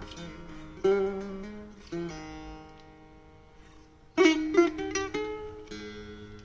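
Persian setar by the luthier Mafakheri played solo: two single plucked notes about a second apart that ring and fade away, then a quick run of notes about four seconds in, followed by another ringing note.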